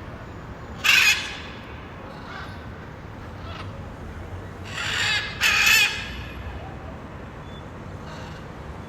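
Blue-and-yellow macaw (Ara ararauna) giving harsh, raspy screeches: one loud call about a second in and two more close together past the middle, with a few fainter calls between.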